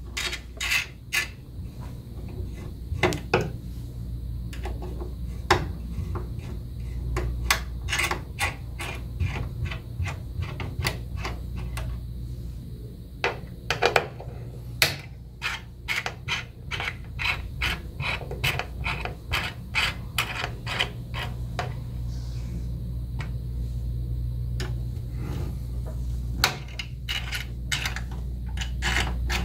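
2.5 mm hex key clicking and scraping in small screw heads on a metal plate as the screws are turned out: irregular sharp clicks, coming in quick runs, over a steady low hum.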